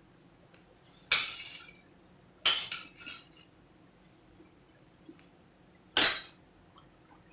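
Steel spoon clinking and scraping against a dish as chopped mango is spooned into cake batter: a few short, sharp clinks, the loudest near the end.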